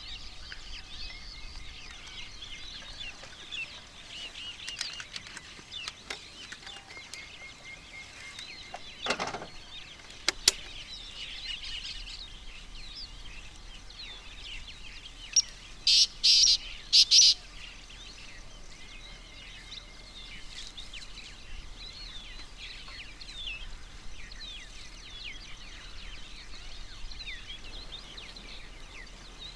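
Many birds chirping and calling throughout, over a light outdoor background hiss. About halfway, a quick run of four or five loud, sharp, high-pitched bursts stands out as the loudest sound, with a single knock and a softer rush a few seconds before it.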